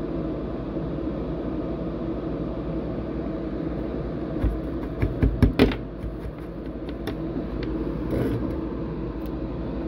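A steady low mechanical hum and hiss, with a few sharp clicks and light knocks from handling the soldering tools and board about five seconds in.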